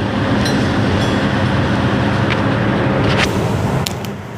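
Steady low rumble of idling truck engines, with a few sharp clicks near the end as the old shock's washers and bolts are handled.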